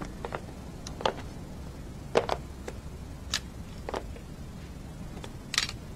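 Light, irregular taps and clicks, roughly one a second, over a low steady room hum. One softer rustling burst comes near the end.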